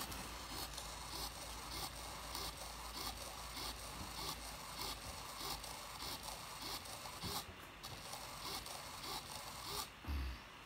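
Small hobby servo motor whirring as it sweeps the ping-pong-ball eyes back and forth through a paper-clip linkage, in a faint rhythm about twice a second, stopping near the end; a brief low thump follows.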